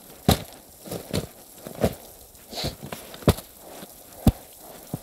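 Boot footsteps crunching through crusted, icy snow: a slow walk of about seven sharp crunches, irregularly spaced, roughly one every half second to a second.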